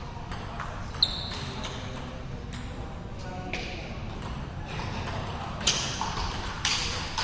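Table tennis ball strikes: a few scattered sharp clicks, one with a brief ringing ping about a second in, then a rally with the ball cracking off bats and table about once a second near the end, these the loudest. Low background chatter underneath.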